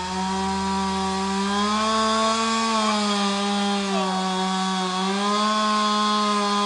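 Two-stroke chainsaw held at full throttle, cutting into the trunk of a big fir tree being felled. Its engine note wavers slightly as the chain loads in the wood.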